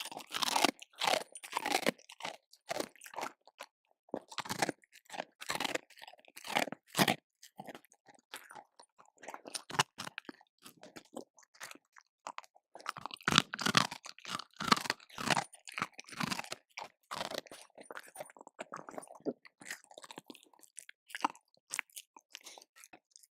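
A dog eating, crunching and chewing its food in irregular bursts of several bites a second, with short pauses between clusters.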